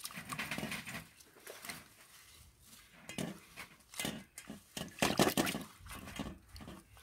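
Hands swishing and rinsing leaves in water in a stainless steel bowl: irregular splashes and sloshes, busiest about five seconds in.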